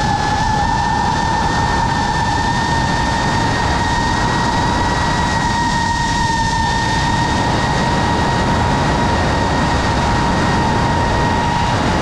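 FPV quadcopter's electric motors and propellers whining at a steady pitch that creeps slightly higher, with wind rushing over the drone-mounted camera's microphone.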